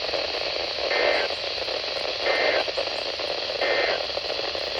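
Weather radio receiver hissing with static on a weak, distant NOAA Weather Radio signal. Three short, faint tone-like blips come through, evenly spaced about a second and a half apart.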